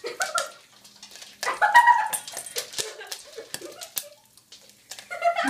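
Popcorn kernels popping in an uncovered stainless-steel saucepan over a gas flame: irregular sharp pops, one or two a second. A short excited vocal sound about one and a half seconds in, and another near the end.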